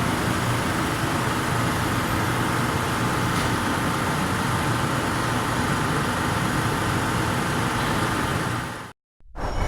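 Steady, even industrial machinery noise, a hum with hiss and no rhythm, which cuts off suddenly near the end.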